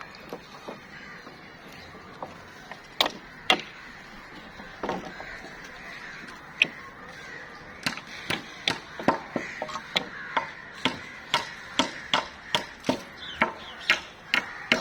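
Repeated sharp knocks of hand-tool strikes: a few scattered blows, then a steady run of about two a second from about halfway in.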